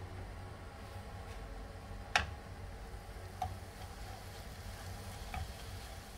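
A spatula stirring shredded cabbage, carrot and beans in a nonstick pan, with a few light clicks against the pan (the sharpest about two seconds in) over a faint sizzle, as the stir-fry is dried out over a high flame.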